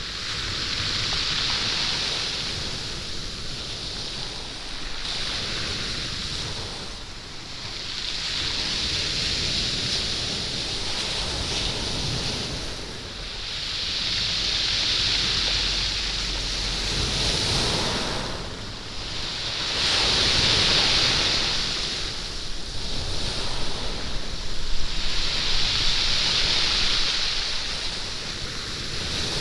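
Waves washing up and back over a stony beach, the stones rolling and clattering in the surf. Five surges swell and fade about every six seconds.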